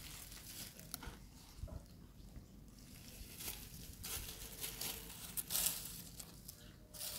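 Dry fallen leaves rustling and crunching in several short, scattered bursts.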